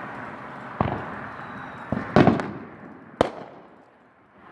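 Fireworks going off: four bangs. The loudest comes a little past two seconds in with a short rattle after it, and a sharp crack follows about a second later.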